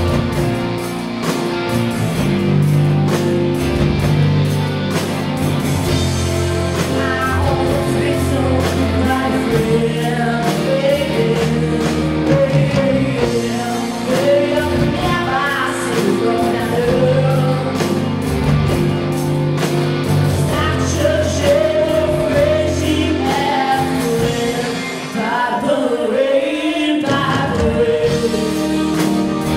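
Live pop-rock band playing, with two female vocalists singing over electric guitars and drums.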